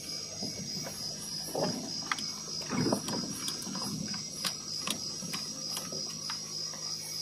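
Car cabin rattling and clicking as the car creeps over a rough dirt track, with irregular sharp clicks and a few duller knocks, over a steady high-pitched whine.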